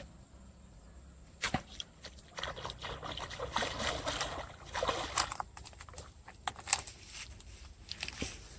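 Water splashing and sloshing in irregular bursts for several seconds, with a few sharp clicks among them.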